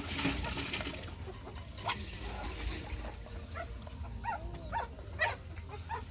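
A dog eating wet rice and fish from a plastic bowl: irregular chewing, smacking and lapping with small clicks against the bowl. A few short, faint animal calls sound in the background about two-thirds of the way in.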